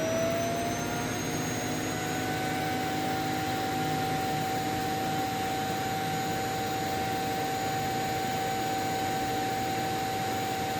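Robot vacuum's self-emptying dock running its suction motor, a steady high whine that climbs slightly in pitch over the first couple of seconds as it finishes spinning up, then holds level while it empties the docked robot's dust bin.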